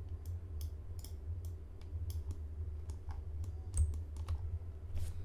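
Computer keyboard keys and mouse buttons clicking irregularly, about three clicks a second, over a steady low hum.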